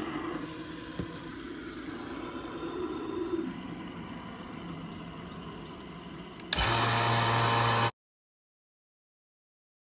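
A fidget spinner whirring on its bearings just after being flicked, its hum changing about three and a half seconds in as a glass dish is set down over it. About six and a half seconds in, a two-stage vacuum pump starts running loudly and steadily, and the sound cuts off to dead silence a second and a half later.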